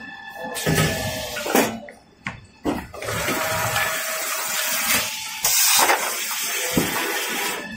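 Toilet-paper and kitchen-towel rewinding machine running: a steady rushing hiss of machinery, with a few sharp knocks in the first three seconds and a brief, louder high hiss about five and a half seconds in.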